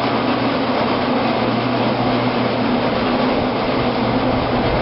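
Grape destemmer-crusher running steadily with a low hum and a continuous rattling whir, still empty before the first batch of Pinot Noir grapes goes in.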